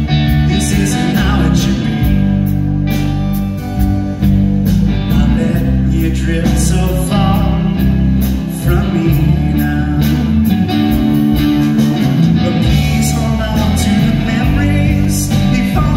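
Live rock band playing a slow, blues-tinged song: acoustic and electric guitars, bass and drums, with a male lead vocal over them.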